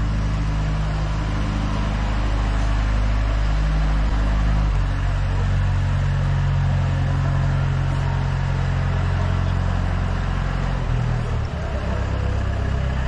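A motor vehicle's engine running steadily with a low hum, its pitch rising about five seconds in and dropping again near the end.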